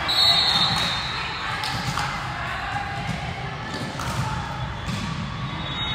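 Indoor volleyball gym between rallies: a murmur of voices echoing in a large hall, a few scattered thuds of a ball bouncing on the court floor, and a short, high-pitched tone near the start.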